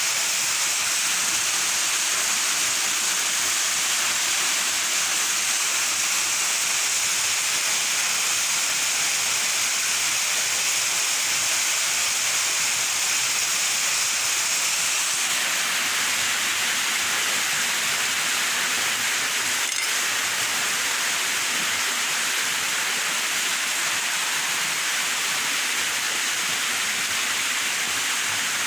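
Waterfall rushing: a steady, even hiss of falling water that shifts slightly in tone about halfway through.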